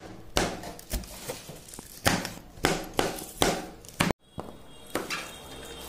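Kitchen knife chopping green chillies on a cutting board: a series of sharp knocks, about eight, as the blade strikes the board at an uneven pace.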